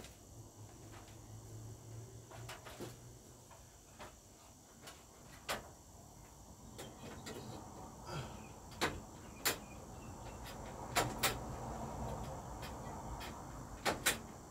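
Scattered sharp clicks and knocks of a fluorescent tube being handled and fitted into the pin sockets of a ceiling light fixture, over a faint steady hiss.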